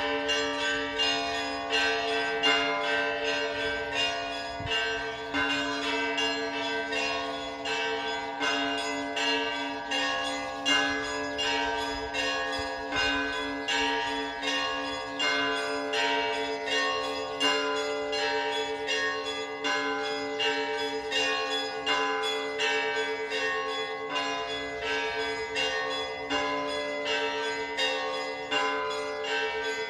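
Orthodox church bells ringing: smaller bells struck in a quick, repeating pattern of several strokes a second over the steady hum of the larger bells.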